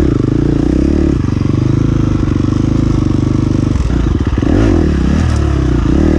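Dirt bike engine running as the bike is ridden along a trail. It holds steady at first, then in the second half its pitch rises and falls as the throttle is worked.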